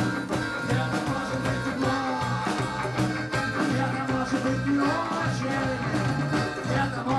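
Live band playing with accordion, trombone, electric and acoustic guitars and a drum kit, a steady drum beat under the melody.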